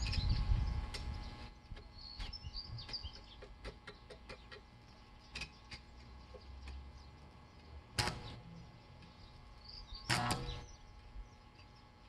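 Birds chirping now and then, with a few scattered sharp clicks and knocks, the loudest about two-thirds of the way in and another near the end. A low rumble at the start dies away after a second or so.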